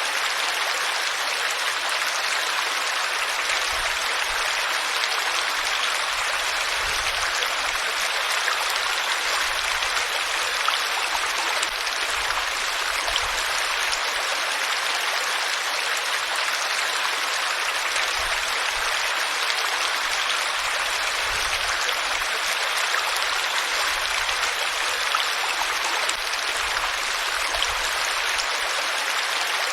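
Flowing water rushing steadily and evenly, with no breaks or changes.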